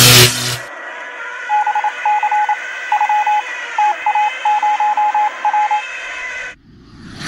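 Radio-style hiss and hum with short beeps at one pitch keyed on and off in irregular groups, like Morse code. It follows a loud rough noise burst that stops about half a second in, and cuts off near the end as a rising whoosh begins.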